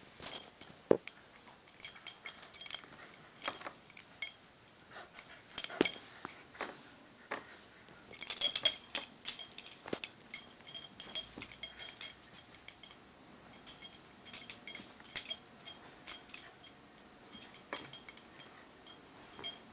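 Metal ID tags on a Shiba Inu's collar jangling and clinking in quick, irregular bursts as the dog tugs and shakes a rope toy, busiest about eight to ten seconds in.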